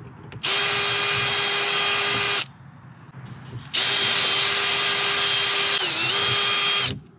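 Makita cordless drill running in two steady bursts of about two and three seconds, drilling out the pop rivets that hold an RV cargo-door lock. Near the end of the second burst the motor pitch dips briefly as the bit bites into the rivet.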